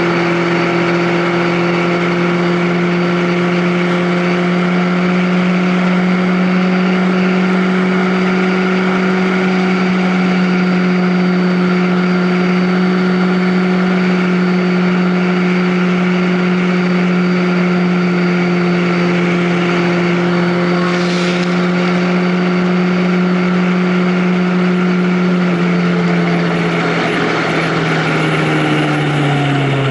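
Vehicle engine running steadily at cruising speed over a haze of wind and road noise. Over the last few seconds the engine note falls steadily in pitch as the vehicle slows.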